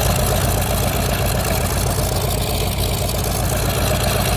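A WWII fighter's big piston aero engine running steadily at low speed.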